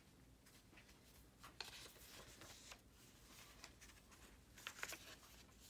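Faint rustle of a Little Golden Book's paper pages as the picture book is opened and leafed through, in two short bouts.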